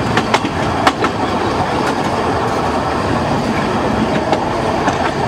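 Saxon I K narrow-gauge steam locomotive No. 54 under way, heard from its cab: a steady rush of running noise with the clickety-clack of wheels on the rails and a few sharp knocks in the first second.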